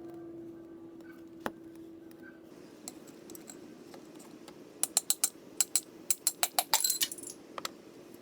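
Metal parts and tools clinking while a cast bench vise is taken apart: one sharp click, then a quick run of about a dozen metallic clinks near the end, over a steady low hum.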